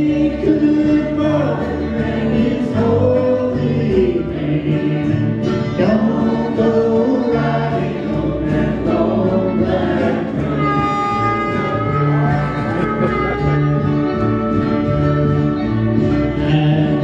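Live amateur country-gospel performance: a man and a woman singing together over strummed acoustic guitars, with a harmonica joining in.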